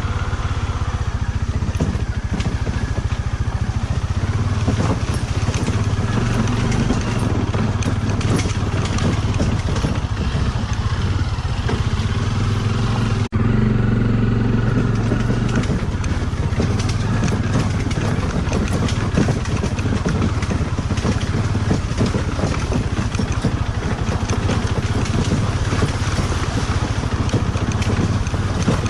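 Motorcycle engine running while riding, with steady rattle and clatter over the engine note; the sound breaks off for an instant about halfway through.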